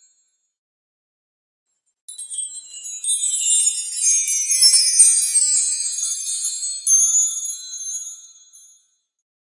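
Wind chimes tinkling, a dense cluster of high metallic strikes that starts about two seconds in and dies away near the end.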